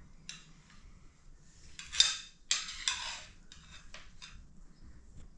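Metal spoons scraping and clinking against metal plates of food, with a few louder clatters about two to three seconds in.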